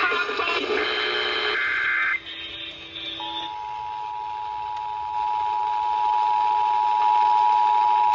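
Radio broadcast audio for about two seconds, then the Emergency Alert System two-tone attention signal (853 Hz and 960 Hz sounded together) comes on about three seconds in and holds steady, announcing the tornado drill alert.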